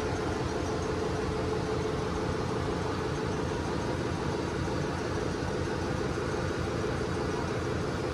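Steady drone of running engine-room machinery aboard a ship, an even noise with a constant hum.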